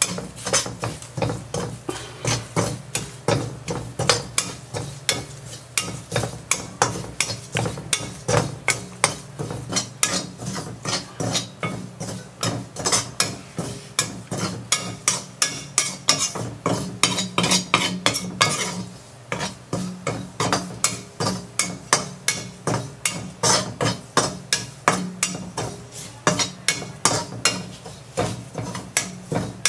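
Spatula scraping and stirring grated coconut and curry leaves as they dry-roast in a kadai, at about two to three strokes a second with a short pause about two-thirds of the way through. The coconut is stirred without stopping on a low flame so it browns evenly without burning.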